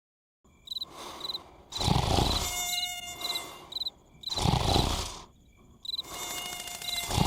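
Insect chirping, cricket-like, in short repeated pairs of high chirps, starting abruptly after a moment of silence. Three louder, breathy swells with a low rumble come about two and a half seconds apart.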